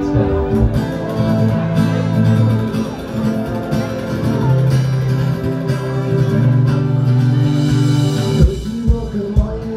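Folk-punk band playing live: guitars strummed under long held notes, then a steady drum beat comes in about eight and a half seconds in.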